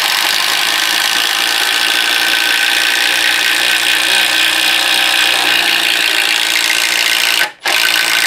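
Milwaukee M12 Fuel conventional (non-hydraulic) impact driver hammering steadily as it drives a 1/2 inch twist drill bit through a pressure-treated 4x4 without stalling. It stops briefly about seven and a half seconds in as the hole is finished, then runs again for about a second.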